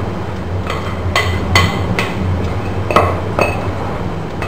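A spoon clinking and knocking against a metal kadhai as the chickpeas are pushed in, about seven sharp strikes with a brief metallic ring. A steady low hum runs underneath.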